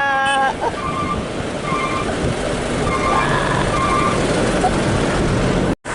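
Truck running on the road, heard from inside the cab as a steady rumble of engine and road noise, with a few short faint tones about a second apart.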